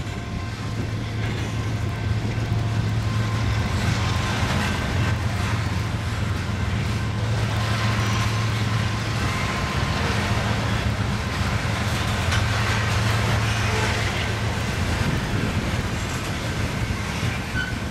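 BNSF freight train rolling past: a steady rumble of the cars on the rails with a steady low hum over it.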